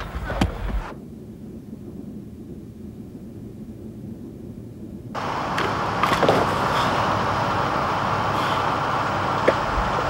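Construction machinery noise: a muffled low rumble for the first few seconds, then, about five seconds in, a sudden switch to loud, steady machine din with a few knocks and clicks.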